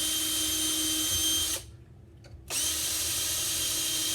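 Power drill running steadily with a motor whine, stopping for about a second partway through and then starting again, while pre-drilling pilot holes in a door for the lock's flathead screws.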